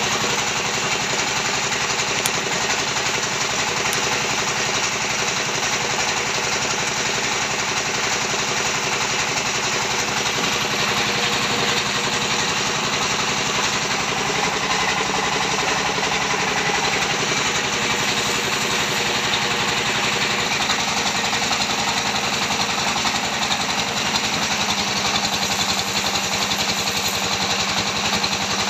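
Small engine driving a homemade pan-type cement mixer, running steadily with a fast, even pulse as its star-shaped paddle churns wet concrete mix in the steel drum.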